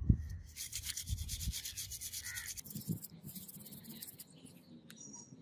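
A toothbrush scrubbing a rusty threaded metal part in rapid strokes, stopping about halfway through. A low thump comes right at the start.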